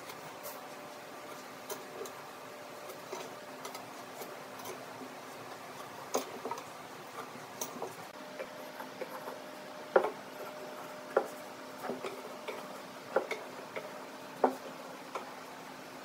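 Irregular light knocks and taps as curved wooden chair blanks and a steel rule are handled and set down on a wooden workbench, over a faint steady hum.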